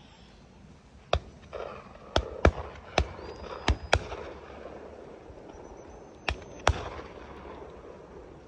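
Shotguns firing during a drive on a driven game shoot: about eight shots in under six seconds, several coming in quick pairs, each with a short echo.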